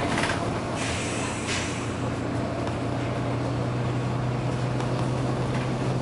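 Inside a moving Volvo B9TL double-decker bus: its six-cylinder diesel runs with a steady low hum over road noise. A few short hisses of air come from the bus's air system in the first couple of seconds.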